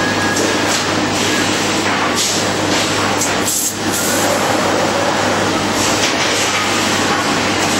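Textile slitting and cross-cutting machine running, a loud, steady mechanical noise with a constant low hum and a few brief hissy surges about two, three and a half and six seconds in.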